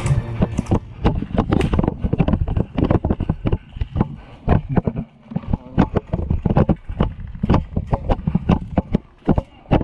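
Running footsteps on grass and dirt, about two to three thumps a second, with the rifle and gear jostling against the camera and wind on the microphone.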